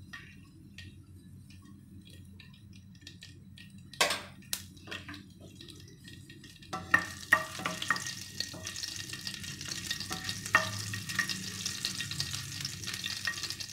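Cumin seeds and chopped green chillies frying in hot oil in a nonstick pan, the sizzle building from about halfway through. A wooden spatula knocks and scrapes against the pan.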